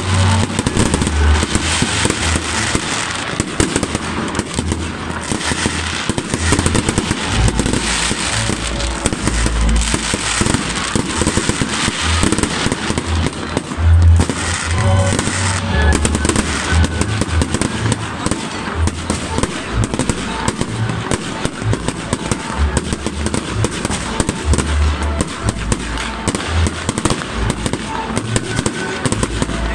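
Aerial fireworks display: shells bursting in a dense, continuous barrage of bangs in quick succession, the loudest about halfway through.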